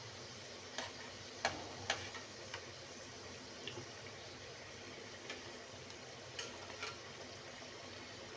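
Oil sizzling faintly as somas pastries deep-fry in a steel kadai, with a scattering of light clicks from a metal spoon knocking against the pan as it works the oil over them.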